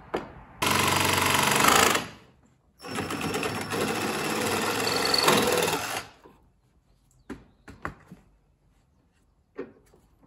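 Ridgid reciprocating saw with a metal-cutting blade sawing through a plastic tractor transmission cooling fan clamped in a vise. It runs in two stretches, about a second and a half, a short pause, then about three seconds. A few light knocks follow as the cut fan is handled.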